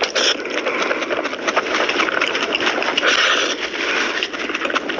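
Close-miked eating of mutton curry: a dense run of wet chewing, smacking and slurping.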